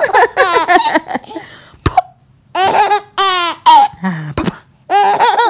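Young infant laughing: three bouts of high, wavering laughter with short pauses between. These are among her first laughs.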